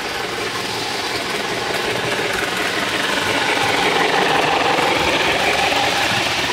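Model train rolling past close by on the layout track: a steady mechanical rumble of wheels and motor that grows louder as the cars go by, loudest about four seconds in.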